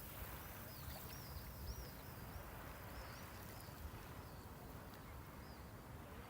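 Sea water washing steadily on the shore, with a small bird giving a run of short, high chirps through the middle.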